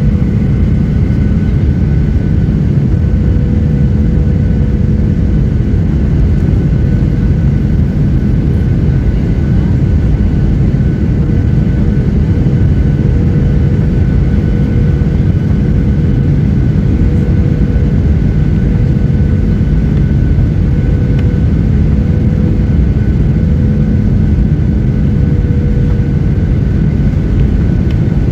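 Steady cabin roar of a Boeing 737-800 in flight: CFM56 turbofan engines and airflow over the fuselage, a deep rumble with thin steady whines above it.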